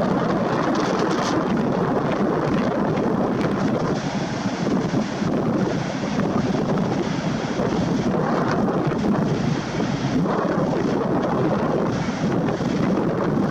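Storm wind blowing hard across the microphone: a steady, loud rushing that swells and eases slightly in gusts.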